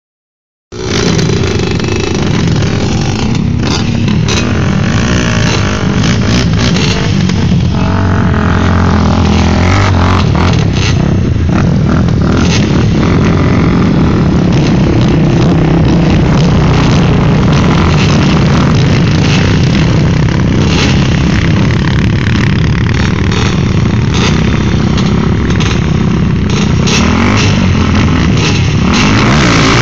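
Several sport quad engines, among them a Honda TRX250R two-stroke single, idling loudly and being revved at the start line of a sand drag race. The pitch rises and falls under throttle blips.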